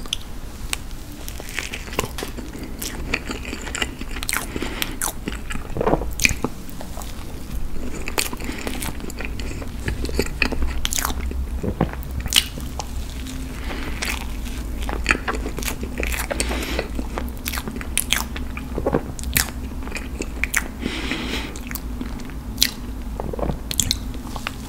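Close-miked eating of red velvet cake with cream cheese frosting: repeated bites and chewing, with many short wet mouth clicks and smacks over a steady low hum.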